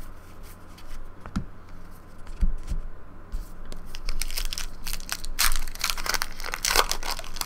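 Hands handling trading cards with a few light taps, then a foil card-pack wrapper being torn open and crinkled, the crackling growing busier about halfway through.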